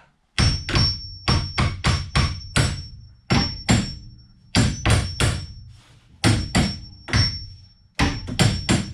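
Repeated hammer blows on metal, coming in quick runs of several strikes with short pauses between runs. Many strikes leave a brief high ringing note.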